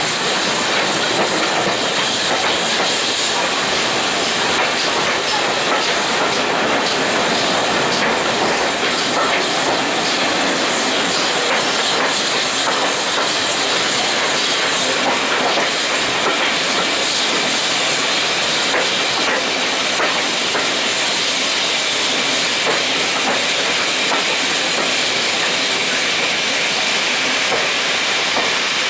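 Steam-hauled train running steadily under way behind GWR Hall class No. 6988 Swithland Hall: a continuous hiss and rumble, with wheels clicking over rail joints.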